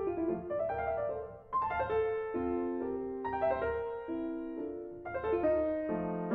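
Solo piano music: a melody over sustained chords, with fresh notes and chords struck about a second and a half in and again near the end.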